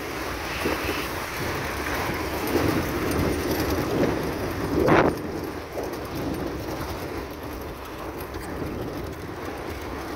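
Vehicle driving over a rough gravel track: steady road noise with irregular bumps and rattles, and one louder bump about five seconds in.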